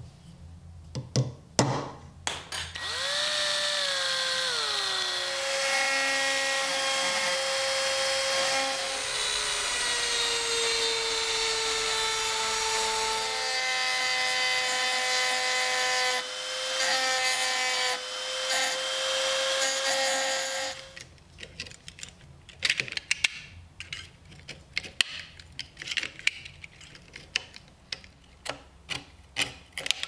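Small rotary tool with a pointed bit running with a steady whine at the rivets of a tiny pocket knife's handle. Its pitch sags early on as it bites and then holds, and it stops about two-thirds of the way through. A run of light metallic clicks and scrapes follows as the handle is worked loose.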